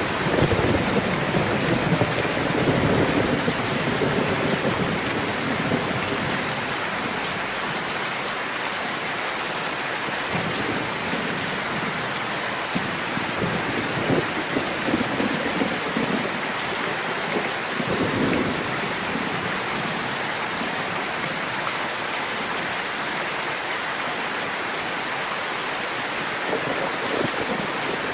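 Steady rain falling, with low rumbles of thunder in the first few seconds and again around the middle.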